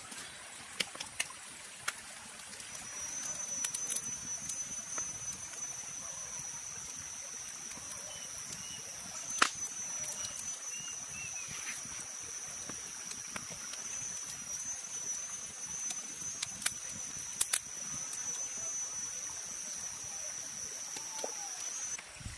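Skewered seafood grilling over an open wood fire, with a steady crackle and sharp pops from the burning wood. A steady high-pitched insect drone runs through it, starting about three seconds in.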